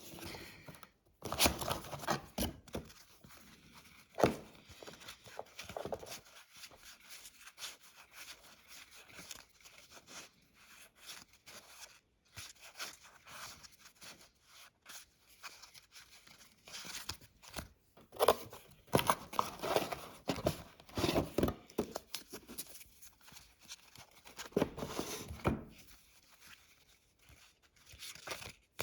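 Trading-card packaging and cards being handled: irregular rustling and tearing of paper and plastic, in bursts, with a sharp click about four seconds in.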